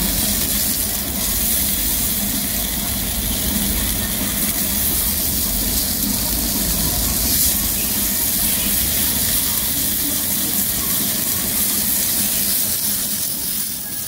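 Beef steak sizzling steadily on a hot grill stone.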